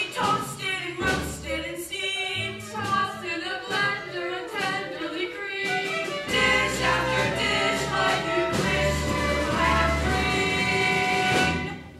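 A live stage-musical number: a group of voices singing over instrumental accompaniment with a steady bass line. The music breaks off just before the end.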